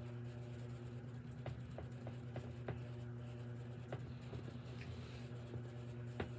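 A steady low hum with scattered faint clicks and small handling noises, typical of candy being handled and tasted.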